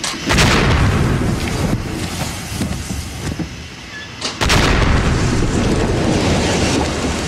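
Steam explosion: a buried pressure vessel of superheated water blows its lid at about 7.5 bar, and the water flashes instantly to steam. Two heavy booms about four seconds apart, each followed by a long rush of escaping steam.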